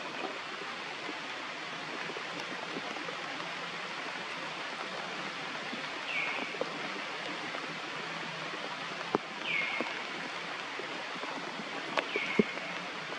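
Steady outdoor background hiss, with three short high-pitched calls that each drop in pitch, spaced a few seconds apart from about halfway through, and a couple of sharp clicks near the end.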